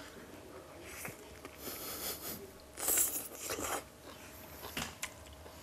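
A man eating a chunbing wrap, thin wheat pancakes rolled around stir-fried fillings: a few short bites and bouts of chewing, the loudest about three seconds in.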